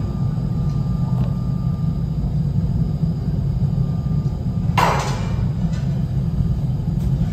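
Steady low rumble of a glassworks' furnaces and extraction ducting, with a brief burst of hiss about five seconds in.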